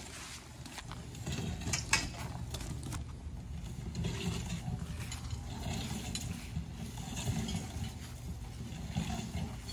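Metal ground stakes clinking and rattling together in hand, with one sharp clink about two seconds in, over wind buffeting the microphone.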